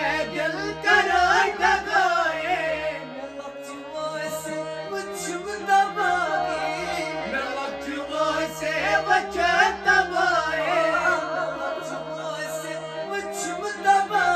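Male vocalist singing a Kashmiri song, his voice bending through long melismatic phrases over held keyboard notes and a drum beat.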